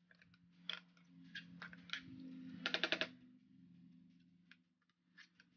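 Steel spoon stirring squid pieces in a frying pan, a faint string of clicks and short scrapes of metal on the pan, with a quick run of about six clicks around three seconds in. A faint steady low hum runs underneath.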